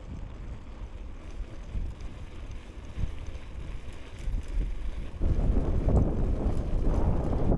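Wind buffeting the microphone on a moving bicycle, with low road rumble. It gets louder about five seconds in.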